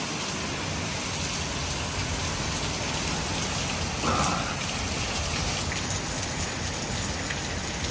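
Heavy hurricane rain pouring steadily, with wind rumbling, and a brief louder noise about four seconds in.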